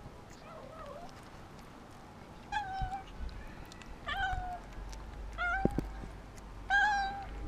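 Cat meowing: a faint cry near the start, then four short, clear meows about a second and a half apart. These are the cries of a hungry, frightened stray asking for food.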